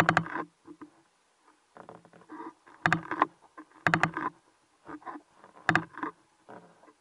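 Handling noise from a spearfisher's gear recorded underwater: irregular clusters of sharp clicks and short squeaky rubbing sounds, coming roughly once a second and loudest at the start and about three and four seconds in.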